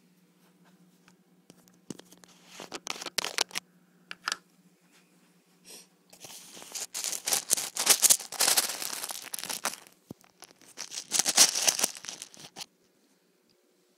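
Crinkling and rustling of a plastic turtle-food packet being handled and opened, in several bursts, the longest starting about six seconds in and lasting some four seconds.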